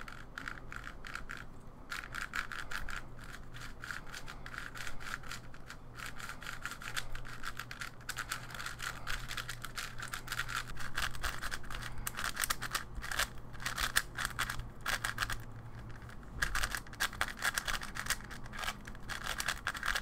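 A new, heavily lubed QiYi Wushuang M 5x5 speedcube being turned continuously by hand: fast, irregular clicking and scratchy plastic layer turns. The inner layers sound sandy, as a cube does on its first turns out of the box before it is broken in.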